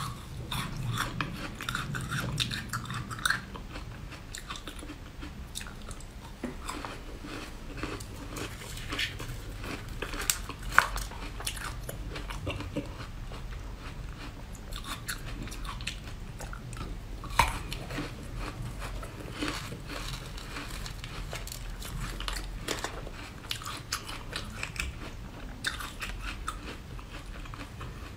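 Close-up biting and chewing of frozen red grapes: a steady run of sharp crunches and crackles as the icy fruit is bitten, with two louder crunches partway through.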